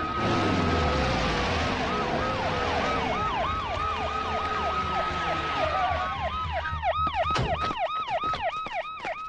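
Police vehicle sirens: a slow wail that rises and falls, together with a fast yelping siren of about four sweeps a second. A low rumble runs underneath until about seven and a half seconds in.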